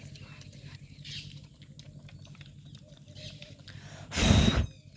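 Puppies eating and licking from a small plastic tray, soft wet smacking with tiny clicks. About four seconds in, a brief loud rush of noise lasts about half a second.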